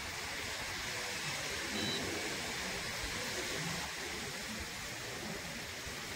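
Steady outdoor noise: an even hiss with an uneven low rumble, with a short, faint high beep about two seconds in.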